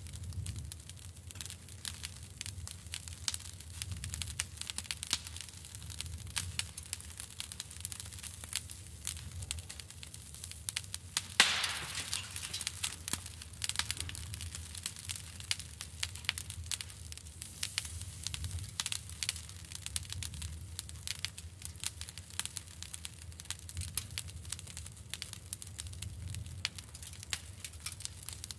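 Charcoal embers crackling and popping under a wire grill grate: many irregular small pops over a steady low rumble. One louder pop comes about a third of the way in.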